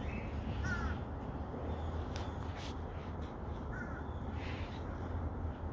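Three-week-old silver Persian kitten giving two short, faint squeaky mews about three seconds apart, over a low steady hum.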